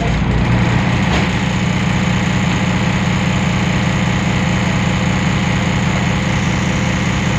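Temsa Avenue LF city bus's DAF PR 228 six-cylinder diesel engine idling steadily.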